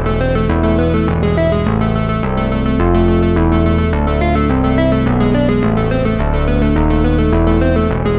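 Background music: synthesizer and electric piano chords with a steady beat, changing in even steps.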